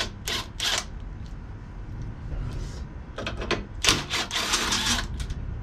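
Cordless impact driver with a socket running on bolts in bursts: two short ones in the first second, then a longer run from about three to five seconds in.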